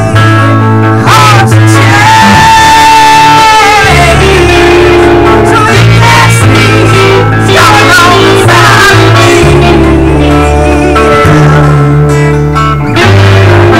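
Loud rock band rehearsal: electric guitars and an acoustic guitar playing a heavy riff, over a low line that moves in blocks, with a note held for a second or so a couple of seconds in.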